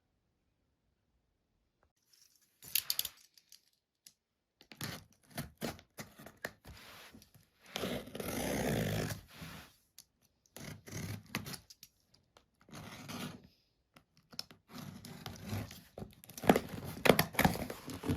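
Packaging being torn open and handled, with ripping and crinkling in irregular bursts starting about two seconds in and a longer, louder rip about eight seconds in.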